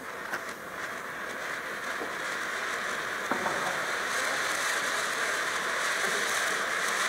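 Panda Lucifer Gold firework fountain igniting and spraying sparks: a steady hissing rush that grows louder as the fountain builds up, with a couple of faint clicks in it.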